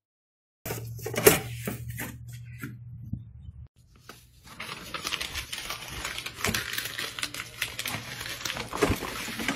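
A sheet of printer paper crumpled by hand into a ball: a dense, continuous crinkling from about halfway in. Before it come a few sharp rustles and clicks over a low hum.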